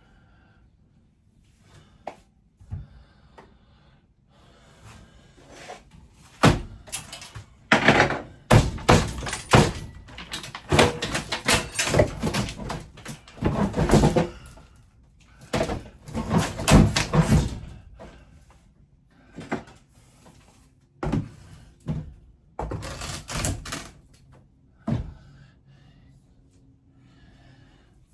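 Interior fittings of a 1972 Winnebago Brave being pried and wrenched loose by hand: a few light clicks, then from about six seconds in a long run of repeated knocks, thuds and bangs, tailing off near the end.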